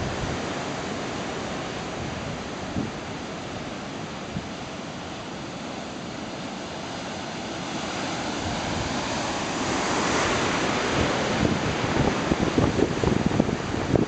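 Ocean surf breaking, with one wave's crash swelling to a peak about ten seconds in. Wind buffets the microphone in gusts near the end.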